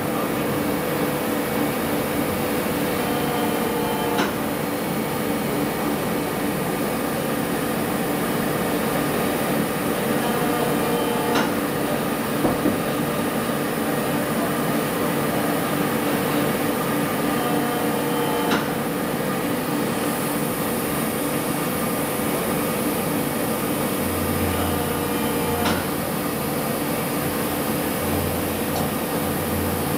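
Scharmann HeavyCut CNC floor-type horizontal boring mill running: a steady machine hum with a few held tones and a faint click about every seven seconds. A lower hum comes in near the end.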